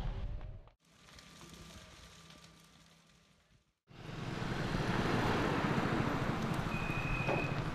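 A low rumble from the night fire scene fades out in the first second and gives way to a few seconds of near silence. From about four seconds in, a steady outdoor background noise with distant traffic sets in, with a brief high tone near the end.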